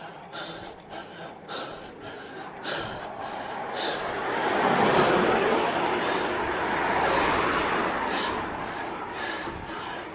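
A vehicle passes: its road noise swells over a few seconds and fades away again. Under it runs a cyclist's rhythmic heavy breathing from the effort of a steep climb.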